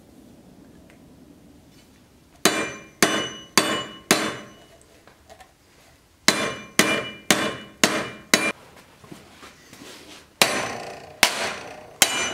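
Hard metal-on-metal blows on the edge of a 5160 leaf-spring steel sword blade clamped in a vise, dinting notches into the edge. There are twelve sharp hits in three quick bursts of four, five and three, and the blade gives a short bright ring after each.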